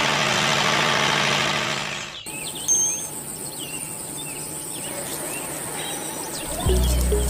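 A small machine running with a steady noisy whir, cut off abruptly about two seconds in. Then birds chirp over a quiet background, and music begins near the end.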